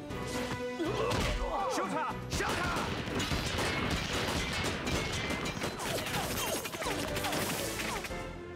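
Animated-film battle effects: rapid submachine-gun and rifle fire, with bullets ricocheting off metal bracelets in quick falling whines and sharp pings, over dramatic orchestral score.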